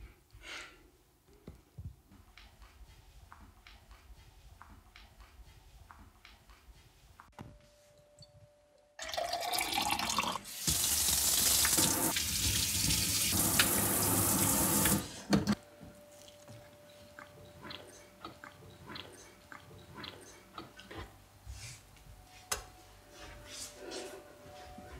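Kitchen faucet with a pull-out spray head running water into a sink. It comes on abruptly about nine seconds in, runs harder a second later and is shut off suddenly after about six seconds. Before and after, there are scattered small clicks and a faint steady hum.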